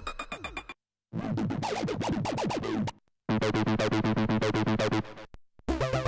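Reveal Sound Spire software synthesizer auditioning its sequenced factory presets one after another: short patterns of rapid pulsed synth notes, each about two seconds long, cut apart by brief silences, four in all. The early patterns carry falling pitch sweeps, and near the end a 303-style sequenced bass pattern starts.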